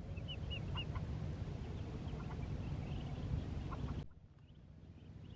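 Ducklings peeping in scattered short, high chirps over a steady low rumble. The background drops away abruptly about four seconds in.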